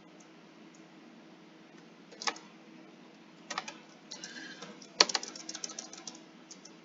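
Keys being typed on a computer keyboard in irregular clicks: a single keystroke about two seconds in, a few more around three and a half seconds, then a quick run of keystrokes about five seconds in, the first of them the loudest.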